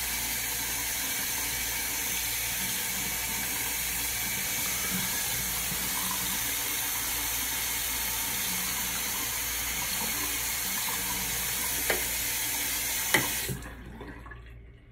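Tap water running steadily into a sink while something is rinsed under it. Two sharp knocks come near the end, and then the water is shut off.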